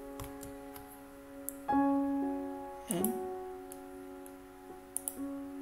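Background music: soft piano chords, with a new chord about every one to two seconds, and a few faint clicks.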